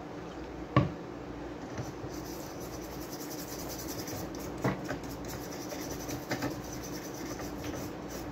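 Freshly soldered amplifier circuit board being scrubbed clean: quick, fine scratchy rubbing strokes begin about two seconds in. A sharp knock comes just under a second in and a smaller one near the middle, over a steady low hum.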